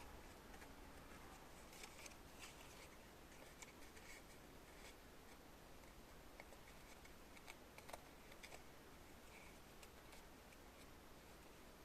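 Near silence: room tone with faint, irregular light clicks and ticks.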